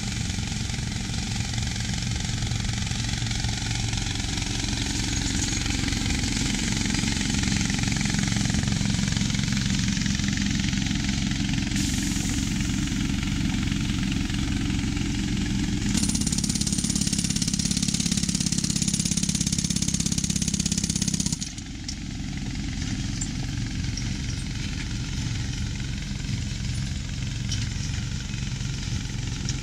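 Vehicle engine running steadily, its sound shifting abruptly a few times and dropping in level about two-thirds of the way through.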